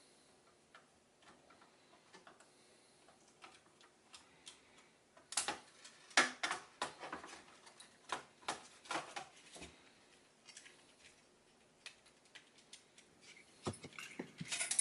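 Scattered clicks and light knocks in irregular clusters, hard plastic and metal parts of an opened external hard-drive enclosure being handled.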